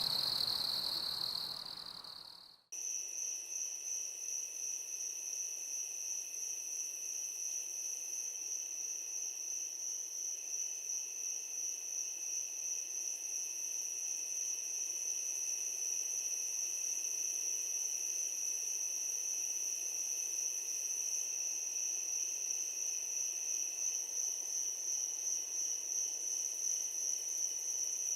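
Night insects trilling. One steady high trill fades out, and after a brief break about two and a half seconds in another chorus starts: a continuous high-pitched trill with a second, lower band beneath it.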